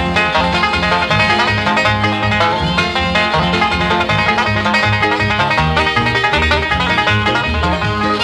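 Background music: a quick string-band tune with many fast-changing notes over a steady bass line.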